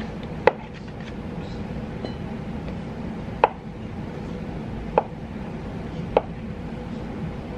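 A knife cutting food on a cutting board: four separate, slow, unevenly spaced strokes, each a sharp knock of the blade on the board.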